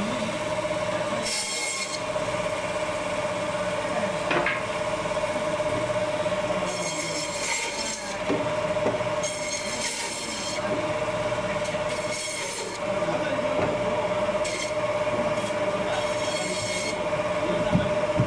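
Electric meat band saw running with a steady whine, its blade rasping through goat bone and meat in several separate cuts of about a second each.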